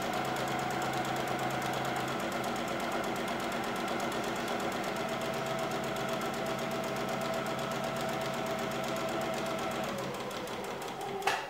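Janome electric sewing machine running steadily, sewing a straight-stitch seam with a fast, even stitch rhythm. It eases off near the end and stops.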